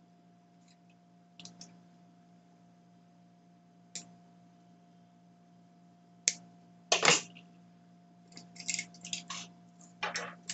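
Pliers clicking and snipping as thin wire is cut and handled at a plastic drill-battery housing: scattered sharp clicks, the loudest about seven seconds in and a quick run of them around nine seconds. A faint steady hum lies underneath.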